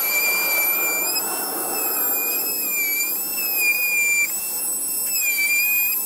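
Handheld power cutting tool running with a high, steady whine, its pitch dipping briefly several times as it bites into the plastic front bumper end to trim clearance for larger tyres.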